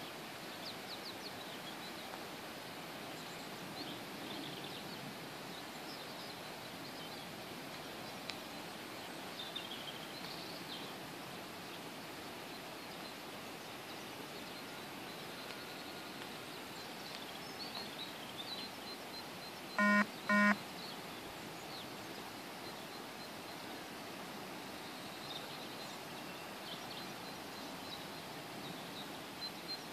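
Rural outdoor ambience: a steady hiss with faint, scattered bird chirps. About two-thirds of the way through, two short, loud beeps sound half a second apart.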